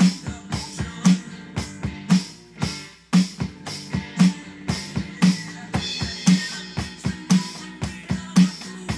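Electronic drum kit playing a steady rock groove, with a strong backbeat hit about once a second and quicker, lighter strokes between.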